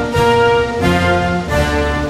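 Music: loud sustained chords, a new one struck with a sharp attack about every two-thirds of a second.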